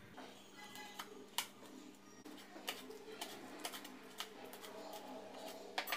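Chef's knife chopping dried red chillies on a wooden cutting board: a run of sharp, uneven knocks as the blade strikes the board, about seven in all.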